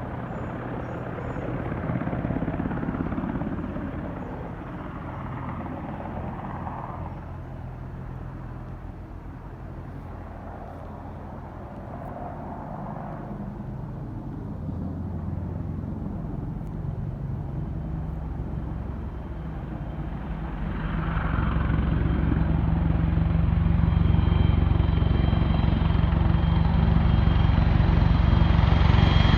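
Boeing AH-64 Apache helicopters flying over, a steady low rotor beat with turbine noise. It grows clearly louder about two-thirds of the way in.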